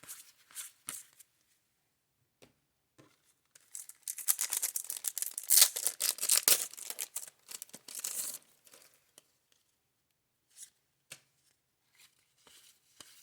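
Trading-card pack wrapper torn open and crinkled for about four seconds in the middle, with light ticks of cards being handled before and after.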